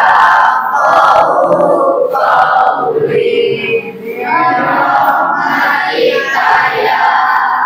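A class of schoolchildren reciting a prayer aloud in unison, many voices chanting together in a sing-song tone.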